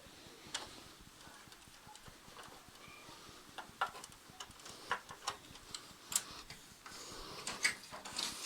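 Light, irregular clicks and taps of plastic printer parts being handled inside a Brother 8250DN colour laser printer, about a dozen spread unevenly.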